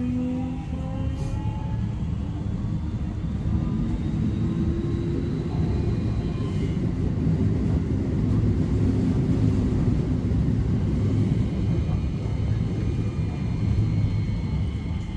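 Keio 5000 series electric train pulling away from a stop: the traction motors' inverter whine climbs in pitch over the first few seconds, under a low running rumble that grows louder as the train picks up speed.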